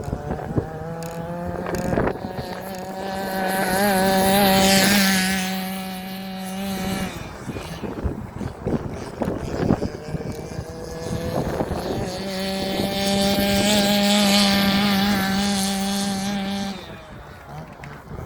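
Two-stroke petrol engine of a 1/5-scale RC car running at high revs during its break-in, holding a steady note that swells loud twice for several seconds each as the car drives about, with quieter stretches between.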